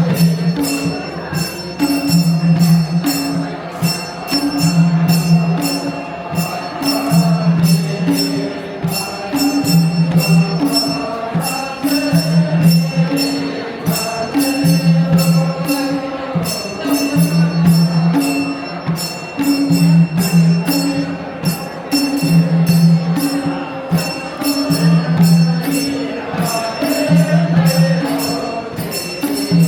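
Traditional Gurung folk dance music: a low drum beat in a repeating pattern, jingling percussion struck several times a second, and singing.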